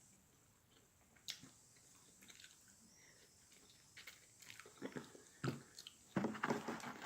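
A person chewing fried chicken close to the microphone, with wet mouth smacks and clicks. Mostly quiet at first, then busier chewing and smacking in the second half.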